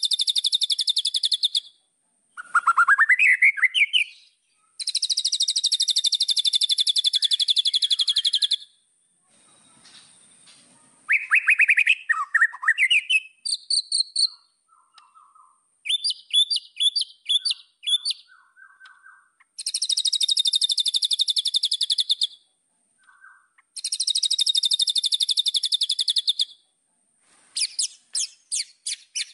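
White-rumped shama (murai batu) singing: long, very fast high trills of two to four seconds each, alternating with rising whistled sweeps and short series of chipping notes, phrase after phrase with brief pauses between.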